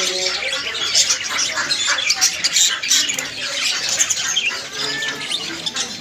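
Caged lovebirds and budgerigars chattering and squawking together, a dense, unbroken stream of short shrill calls.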